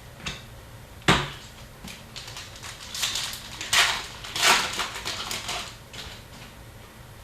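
Foil wrapper of an Upper Deck hockey card pack being torn open and crinkled: a sharp rip about a second in, then several bursts of crinkling.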